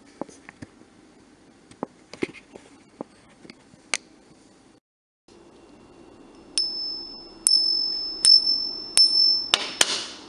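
Silver coins tapped together on a fingertip: first a string of short, dull taps with no ring, the dull thud that a heat-damaged silver coin gives, then about five strikes that each ring out with a clear, high, lasting tone, the ring of an undamaged silver coin, ending in a louder clatter.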